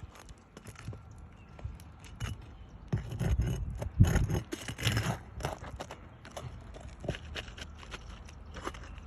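Irregular clicks and scrapes of a metal roof snake (a shingle-removal bar) working under asphalt shingles, prying them up and at the nails. It gets louder and busier, with knocks and handling rumble, about three to five seconds in.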